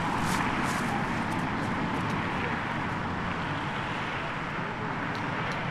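Steady hum of road traffic from passing cars, with a few faint footsteps near the start and again near the end.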